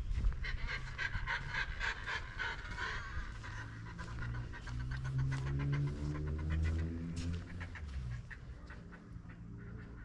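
Fast rhythmic panting, several breaths a second, loudest in the first three seconds. A low hum rises slightly through the middle and fades about eight seconds in.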